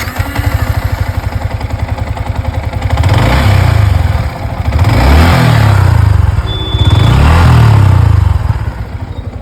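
Yamaha MT-15's 155 cc single-cylinder engine, freshly rebuilt, idling just after starting, then revved three times and settling back to idle. It runs without the crank noise it had before the rebuild.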